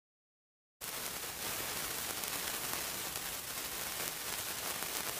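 Steady hiss of TV-static noise, starting abruptly about a second in and cutting off suddenly near the end, used as a logo intro effect.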